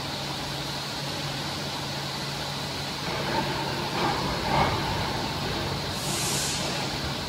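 Steady machinery hum of a factory workshop, a constant low drone, with a few brief louder handling sounds around the middle and a short hiss about six seconds in.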